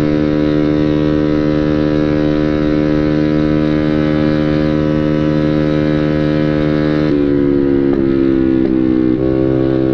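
Motorcycle engine on a stock motor running through a Samlong Draco Black aftermarket exhaust, holding a steady drone. About seven seconds in, the pitch steps and wavers a few times with small throttle changes.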